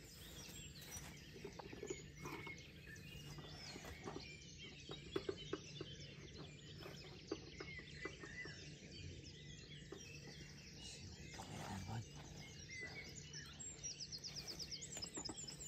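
Several small birds singing and chirping, with a fast trill of repeated high notes near the end. A few light clicks in the middle, over a faint steady low hum.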